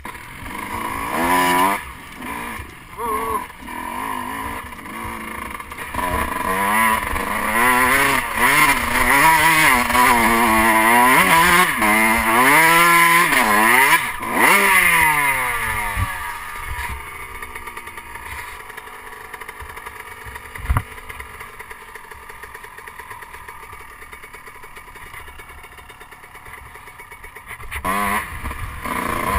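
Motocross bike engine revving up and falling back again and again while being ridden hard. About halfway through it settles to a lower, steadier sound, with one sharp knock a few seconds later, and picks up again near the end.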